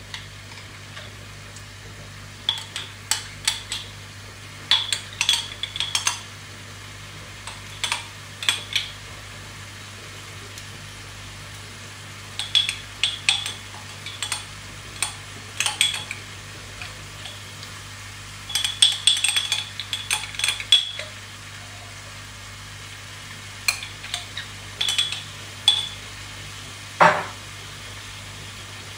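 Wooden spoon scraping and knocking against a non-stick wok as beef cubes and rendang paste are stirred, in short clusters of clicks every few seconds, over a faint frying sizzle and a steady low hum. One short falling squeal near the end.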